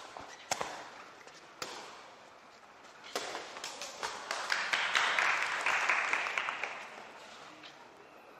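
A few sharp smacks of a sepak takraw ball being kicked, then a crowd clapping from about four seconds in, fading out by about seven seconds.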